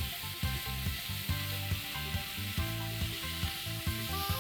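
Chicken masala sizzling in a pan as it is stirred, with a spoon scraping and knocking against the pan about twice a second.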